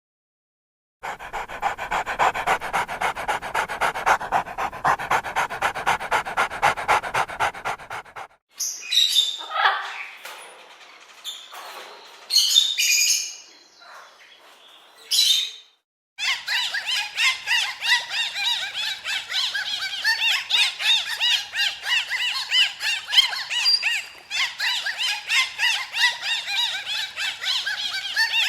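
Animal calls: first a long run of fast, even pulses, then a few scattered separate calls, then another long fast rhythmic run of higher-pitched calls.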